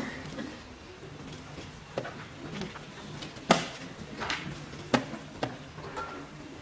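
About six sharp wooden knocks of chess pieces being set down and the chess clock being pressed during a fast blitz game, the loudest about three and a half seconds in, over a steady low hum.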